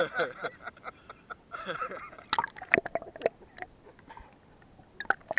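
Water splashing and dripping close by, with several sharp splashes and drips a little past the middle and again near the end; a voice is heard briefly at the start.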